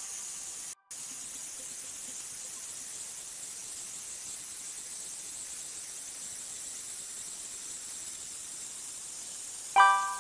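Simulated Nano 2000 metallographic polisher running with a steady hiss as the specimen is held on the fine polishing wheel, breaking off for an instant about a second in. Near the end a short bright chime rings and fades: the completion sound that signals the polishing phase is done.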